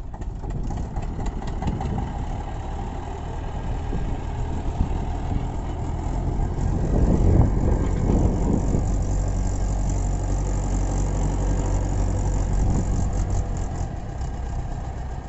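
Diesel engines of a Mahindra 575 DI and an Eicher 242 tractor running under heavy load, the Mahindra towing the Eicher and its sugarcane-laden trolley up a slope. The engine sound builds over the first several seconds and eases off near the end.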